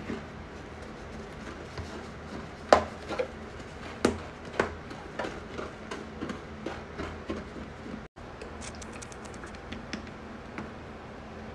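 Powder cleanser canister shaken and tapped over a toilet bowl, pouring powder: a series of sharp knocks and light taps over a low steady hum. After a brief gap near the middle comes a quick run of light ticks.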